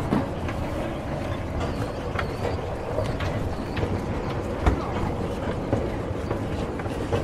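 Escalator running: a steady mechanical rumble with a faint hum and scattered light clicks and knocks from the moving steps, one louder knock about two-thirds of the way through.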